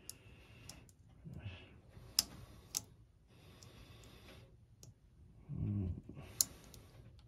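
Faint rustling and a few sharp clicks from hands handling electrical wires and their plastic-sleeved spade connectors, with a brief low sound shortly before the end.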